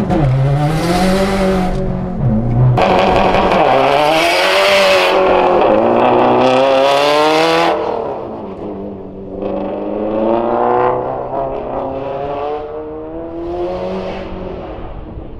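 2017 Subaru WRX STI's turbocharged flat-four engine revving up and dropping back again and again as the car accelerates and brakes through an autocross course. It is heard first from inside the cabin, then from beside the course, fainter in the second half.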